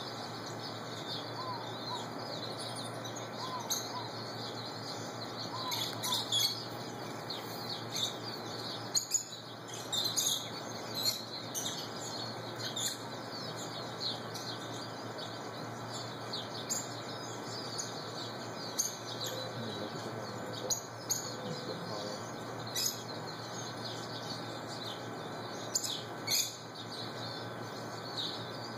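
Rosy-faced lovebirds chirping: a steady stream of quick, high chirps, with louder shrill calls every few seconds.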